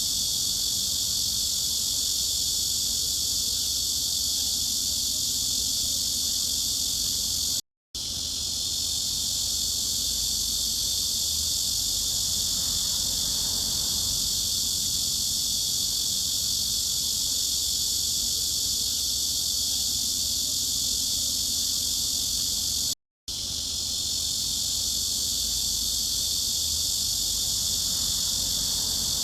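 A steady, continuous cicada chorus, a dense high-pitched drone with almost all its energy above about 3 kHz. It cuts out completely for a split second twice, about 8 and 23 seconds in, then resumes unchanged.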